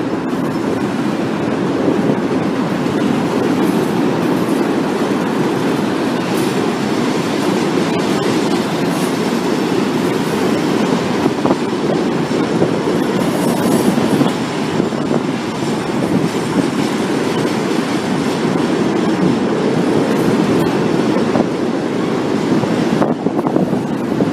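Freight train of coal hopper cars rolling past close by: a steady rumble of steel wheels on rail, with occasional clacks.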